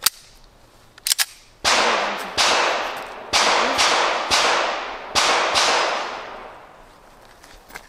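Pistol fired in a quick string of about seven shots, each followed by a long fading echo, after a couple of sharp metallic clicks in the first second.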